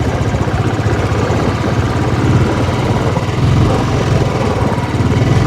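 Motorcycle engine running steadily under way, its firing heard as a fast, even pulsing.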